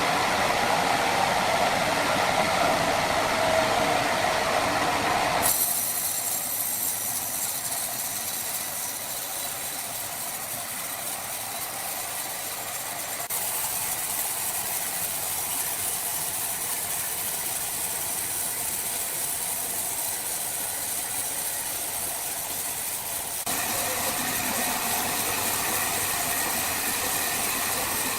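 Sawmill machinery running with a steady mechanical noise, the sound changing abruptly about five, thirteen and twenty-three seconds in.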